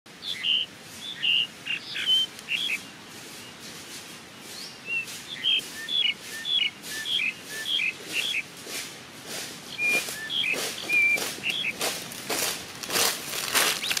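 Birds chirping and whistling, many short repeated calls. From about halfway through, footsteps crunch through dry fallen leaves, growing louder as they come close.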